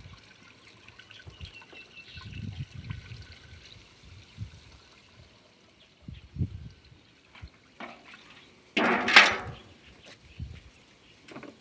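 A water-based spray mix pouring from a stainless steel pail into a plastic backpack sprayer tank, trickling and splashing as the tank fills. A brief louder noise about nine seconds in, after the pouring has stopped.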